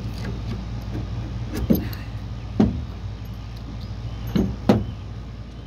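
Claw hammer prying a nail out of a wooden board, with four sharp knocks, the last two close together, over a steady low hum.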